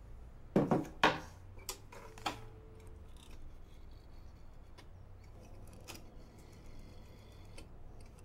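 A green rotary telephone and a brush being handled on a wooden desk: two loud clattering knocks about half a second apart about a second in, then a few lighter clicks and knocks as the handset is lifted.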